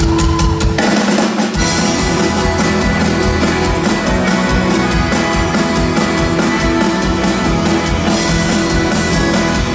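Live folk-rock band with accordion, acoustic and electric guitars, bass and drum kit starting a song. It opens with drum hits, and the full band comes in playing a steady driving beat about a second and a half in.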